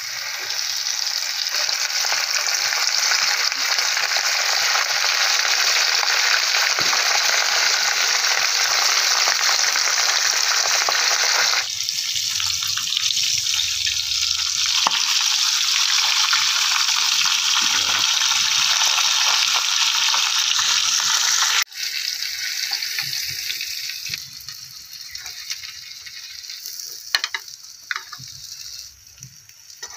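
Semolina-coated Indian mackerel frying in hot oil in a pan: a loud, steady sizzle. It breaks off abruptly about 22 seconds in and goes on quieter, with a few sharp crackles near the end.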